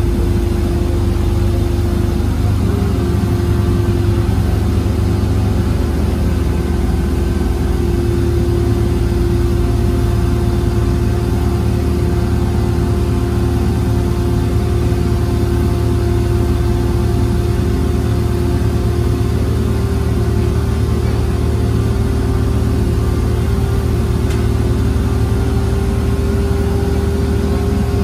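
Diesel engine of a Link-Belt 75RT rough-terrain crane running steadily while the crane holds and slowly lifts a suspended load. It is heard from inside the operator's cab, with a steady hum held above the engine's low rumble.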